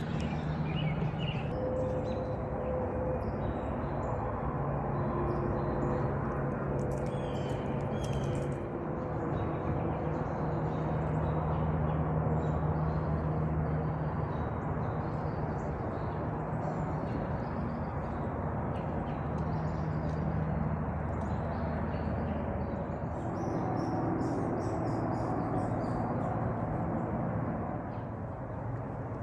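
Woodland ambience: a steady low drone of distant engines, with scattered small-bird chirps that cluster near the end.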